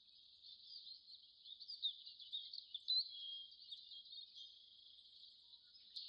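Faint, high-pitched background of small birds chirping and twittering, a continuous birdsong ambience bed.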